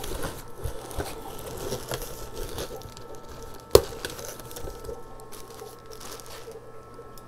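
Plastic bag crinkling and cardboard box rustling as a small bagged plant is lifted out of its shipping box. There is a sharp click about a second in and a louder one near the middle.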